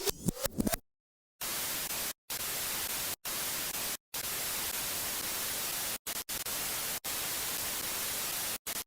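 Steady static hiss that drops out to silence for an instant several times. A few short falling electronic chirps come at the very start, followed by a short gap before the hiss begins.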